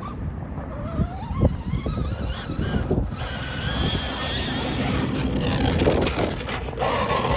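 Losi DBXL-E 2.0 electric RC car's motor and drivetrain whining, rising and falling in pitch with the throttle, over irregular knocking from the gears. It is the sign of a drivetrain fault that the driver puts down to the center differential, with the spur and pinion gears messing up.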